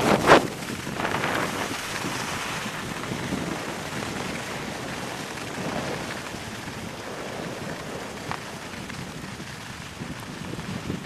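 Wind rushing over the camera's microphone and skis hissing over snow during a fast downhill run, starting with a loud gust that settles into a steady rush.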